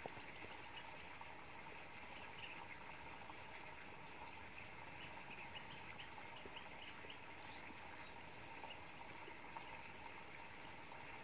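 Faint steady background hiss with a faint hum and scattered faint high chirps.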